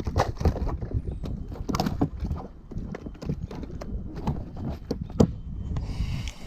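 Irregular knocks and thumps in an inflatable boat while a caught rainbow trout is being killed, with one sharper knock about five seconds in.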